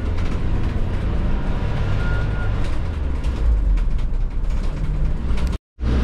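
Steady low engine and road rumble inside a moving ambulance. It drops out for a moment near the end.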